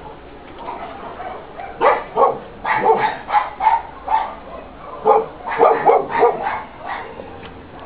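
Shelter dogs barking in a rapid run of short barks, starting about two seconds in and lasting about five seconds.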